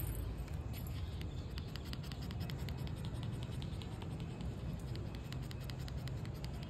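Shih Tzu puppy on concrete tiles: a fast run of light ticks and patter over a low steady rumble.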